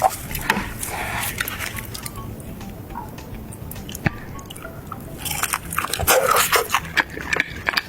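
Eating sounds: repeated crunchy bites and chewing of fried food, with a louder run of crunching about five to seven seconds in.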